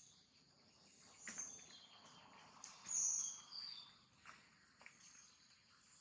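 Outdoor ambience of short, high-pitched bird chirps and whistles, the loudest about three seconds in, over a faint insect hiss, with a few soft clicks.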